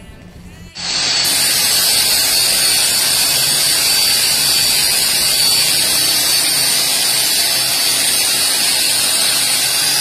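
Hand-held angle grinder with an abrasive disc running against a steel motorcycle exhaust chamber, finishing its re-welded seam. It is a loud, steady hiss with a high whine and starts abruptly about a second in.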